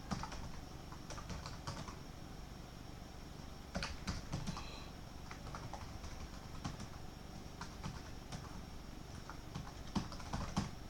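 Faint, irregular clicking of typing on a computer keyboard, in small scattered runs of keystrokes.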